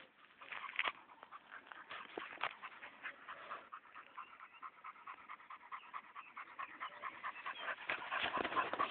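Dog panting in quick breaths, several a second, louder near the end as she comes up close.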